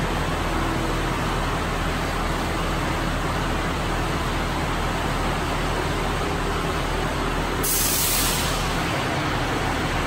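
Fire engine's diesel engine idling steadily. About eight seconds in, a loud hiss of air from the air brakes lasts about a second, as the brakes are released before the engine moves off.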